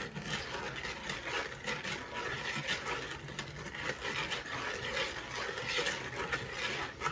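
Wire balloon whisk scraping and clicking against a plastic mixing bowl as a thick cookie batter of butter, sugar and egg is beaten by hand, in a quick, uneven run of small scrapes.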